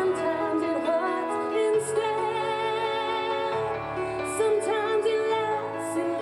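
A singer performing a slow song live over musical accompaniment, holding notes with vibrato.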